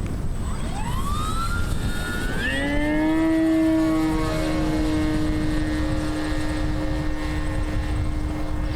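Electric motor and propeller of a radio-controlled model plane: a whine that rises in pitch about a second in, climbs again and settles into a steady, many-toned drone from about three seconds on.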